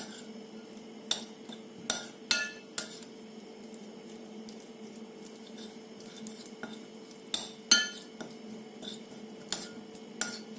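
A spoon stirring vegetables and sauces in a bowl, knocking and clinking against the bowl in scattered strokes, with a pause in the middle. A steady low hum runs underneath.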